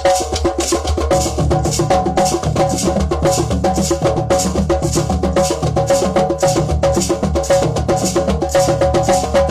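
Drum circle of hand drums and hand percussion playing a fast, steady rhythm, with deeper drum strokes joining about a second in.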